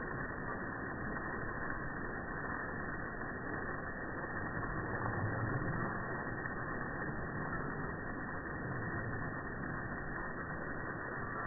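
Steady hiss of water spraying from a garden hose, briefly louder about five seconds in.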